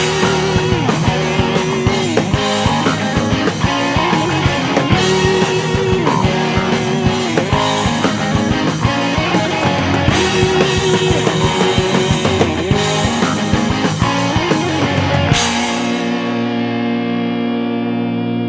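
A rock band with drums, electric guitar and bass plays without vocals, ending a song: about fifteen seconds in, the drums stop on a final chord that is left to ring and slowly fade.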